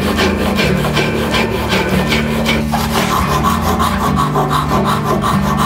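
Handsaw cutting through a wooden workpiece held in a vise, in quick even strokes about three a second, becoming a steadier rasp in the second half.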